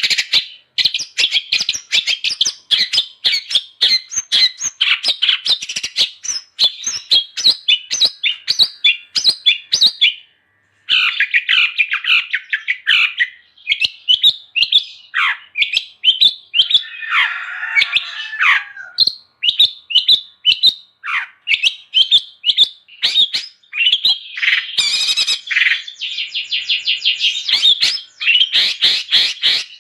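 Long-tailed shrike (cendet) singing a fast, nearly unbroken run of sharp chirping notes, with a brief break about ten seconds in and a harsh rasping call a little past halfway.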